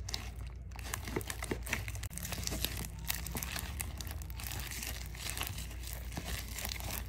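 Plastic spatula stirring white glue and slime activator in a plastic bowl, with a continuous run of sticky, wet crackles and small clicks as the glue thickens into stringy slime.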